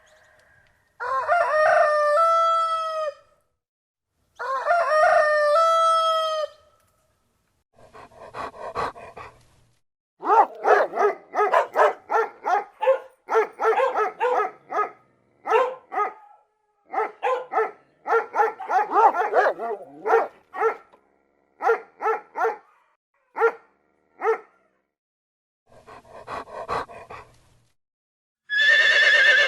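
A rooster crowing twice, each crow about two seconds long, followed by a dog barking in quick runs of short barks. A horse starts to neigh right at the end.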